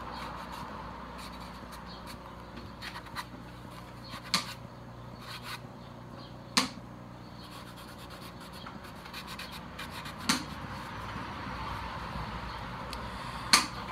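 Cloth rag rubbing over a plastic helmet shell, a steady scuffing, broken by four sharp knocks as the helmet is handled, the loudest near the end.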